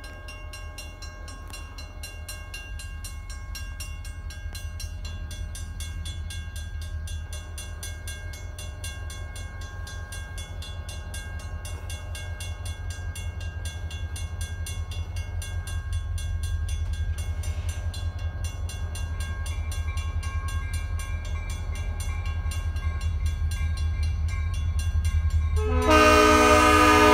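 Grade-crossing bell ringing steadily over the low rumble of a Maine Central GP40 diesel locomotive, which grows slowly louder as it approaches. About a second before the end the locomotive's horn sounds, a loud chord of several notes.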